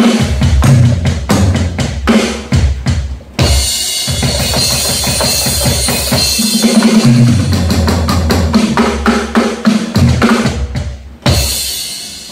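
Roland TD-11 electronic drum kit played through its amplifier: a few seconds of separate kick, snare and tom hits, a short break, then a busy groove under a continuous cymbal wash, ending on one big hit about eleven seconds in.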